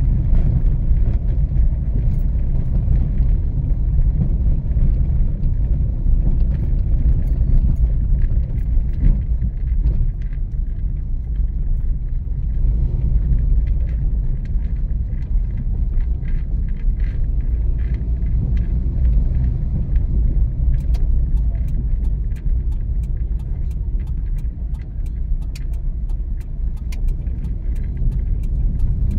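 Car driving at low speed with a steady low rumble of engine and road noise. In the last third, a run of light clicks and rattles comes in over the rumble.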